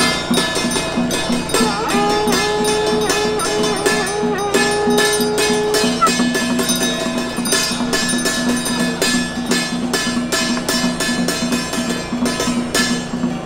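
Traditional Taiwanese temple ritual music: a fast, even beat on hand-held drums and gongs. A long, slightly wavering held note sounds over it from about two to six seconds in.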